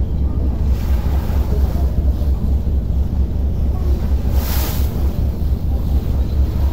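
Steady low rumble of a ferry underway, with wind buffeting the microphone and the rush of choppy harbour water against the hull. A short hiss, like a wave slapping or a gust, about four and a half seconds in.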